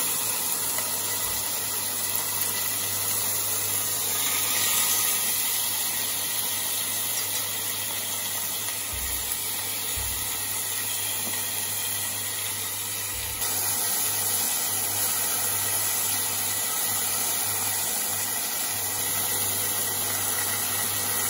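Chicken breasts frying in oil in a non-stick saucepan, a steady hissing sizzle. A steady low hum runs underneath, from the induction cooktop. The sizzle gets a little louder about two-thirds of the way through.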